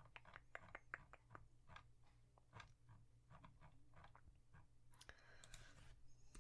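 Faint, close-miked chewing: soft, irregular wet clicks of the mouth, a few each second. A brief rustle comes about five seconds in.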